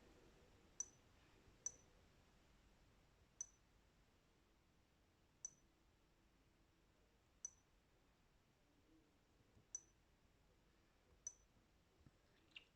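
Short, sharp clicks from taps on a smartphone touchscreen, about eight of them a second or two apart, each with a bright high ring, over near silence.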